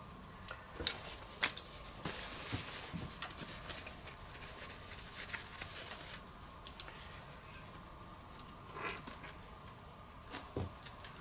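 Hands working on small parts and tools: scattered light clicks and rubbing, busier in the first half.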